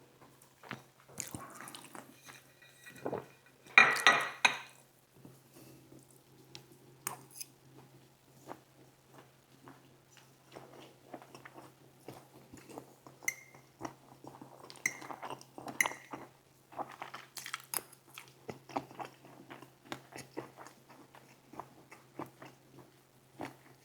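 Eating sounds: utensils clinking and scraping against dishes, with chewing between. There is a loud clatter of several knocks about four seconds in, over a faint steady hum.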